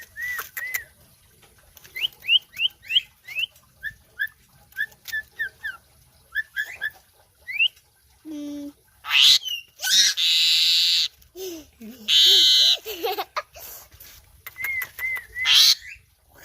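Javan pied starling (jalak uren) singing: a run of short, quick whistled notes, then, about two-thirds of the way through, loud harsh rasping bursts about a second long each, mixed with further whistles.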